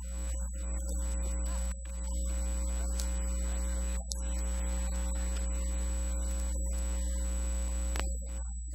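A steady low hum with a faint high whine over it, dipping briefly a couple of times.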